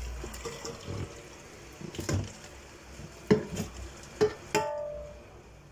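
Hot cooking water pouring from a pot through a plastic colander into a stainless steel sink, draining boiled eggplant, tailing off over the first second or so. Then a few knocks of the pot and utensils against the sink, one ringing briefly near the end.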